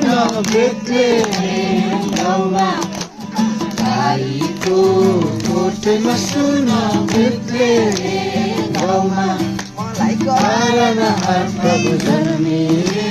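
A group of voices singing a Nepali Christmas carol together over instrumental accompaniment, which holds steady low notes under the melody.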